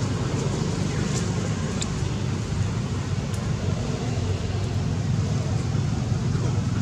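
Steady low rumble of motor vehicles, with a few faint clicks over it.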